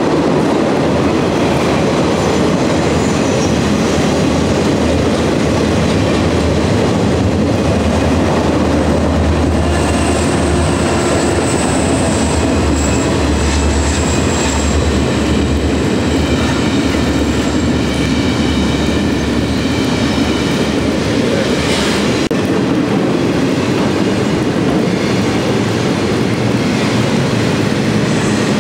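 Double-stack container train of well cars rolling past at close range: a steady rumble of wheels on rail with clickety-clack over the joints. A thin high wheel squeal sounds for a few seconds around the middle, and there is a single sharp clank about three-quarters of the way through.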